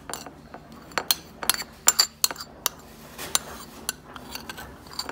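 Metal spoon scraping and clinking against a ceramic plate as oil-soaked pepper paste is scraped off it: a run of irregular, sharp clinks and taps with a short ring.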